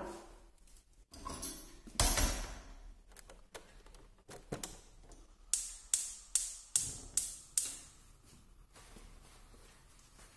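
Gas hob's spark igniter clicking six times in quick succession, about two and a half clicks a second, to light the burner under the wok. A louder brief clatter comes about two seconds in.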